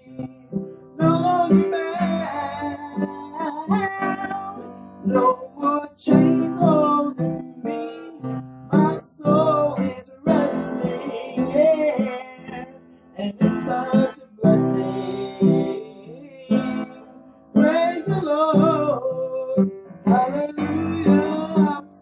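A song: an acoustic guitar strummed under a woman singing.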